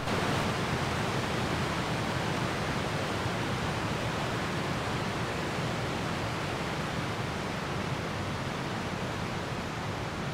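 Colorado River rapids rushing over rocks: a steady whitewater rush that grows slightly fainter toward the end.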